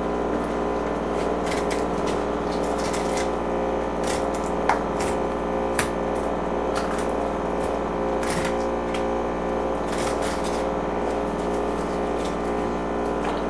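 Knife blade cutting along a striped bass's backbone and ribs on a wooden cutting board, giving irregular small clicks and scraping ticks as it passes over the bones. A steady hum runs underneath.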